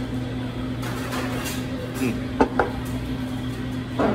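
Dishes and utensils clinking: a ramen bowl and spoon knocked against the table and each other, with two sharp knocks about two and a half seconds in and another near the end, over a steady low hum.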